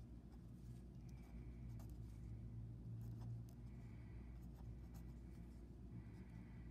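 Fine-point Sharpie marker writing on paper: faint, scratchy, short strokes with pauses between them, over a low steady hum.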